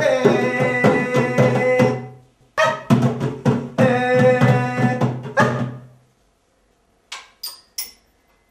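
Hand drum played in two quick runs of strokes with ringing, pitched tones, the second run longer. A few short sharp taps follow near the end.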